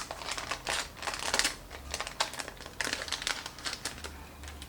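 Packaging and paper sheets crinkling and rustling in irregular bursts of small clicks as they are handled.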